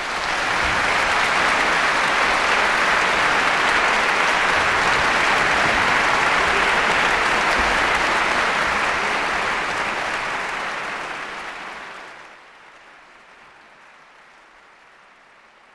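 Audience applause, dense and even, fading away about twelve seconds in.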